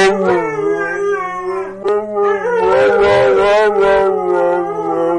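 A dog howling: a long, drawn-out howl held at a fairly steady pitch with some wavering.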